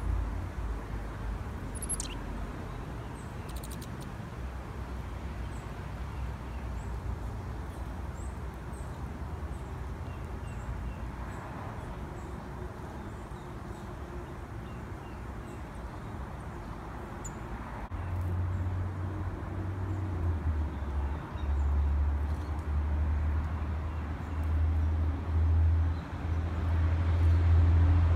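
Outdoor backyard ambience: a low rumble that grows louder and uneven about two-thirds of the way through, under faint, high, thin bird chirps repeating under a second apart and one falling high call early.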